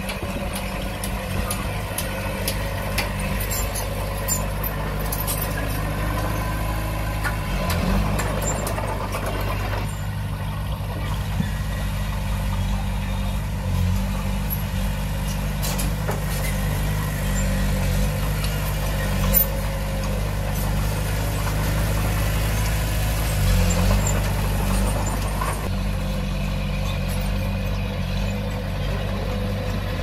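Bulldozer diesel engine running steadily at an even low pitch, easing up slightly now and then, with scattered sharp clicks and one louder knock about two-thirds of the way through.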